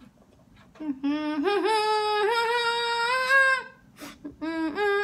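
A woman singing alone without accompaniment, drawn-out notes with slides between them and no clear words. It starts about a second in, pauses briefly, and a second phrase begins a little after four seconds.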